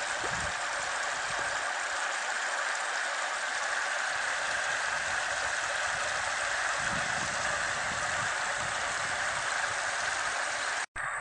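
Muddy floodwater rushing off a dirt road into a field, running as a steady hiss: overflow from a farm dam filled by heavy rain. The sound cuts out for an instant near the end.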